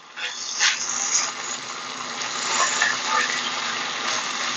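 Diced bacon and green onions sizzling in a hot wok, stirred with a spatula, with a few light scrapes and clicks about a second in. The sizzle starts just after the beginning and grows slightly louder.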